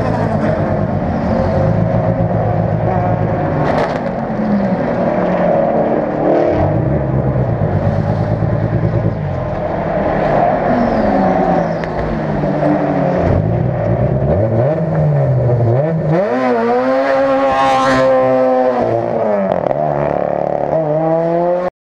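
Race car engines running and revving in a pit lane, their pitch repeatedly rising and falling. The loudest revving comes in the last few seconds, then the sound cuts off abruptly.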